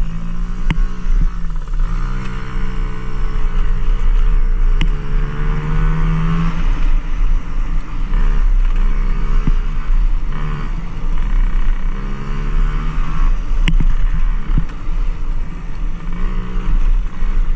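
Dirt bike engine being ridden hard, its pitch climbing and dropping several times as the throttle is opened and closed through the ride.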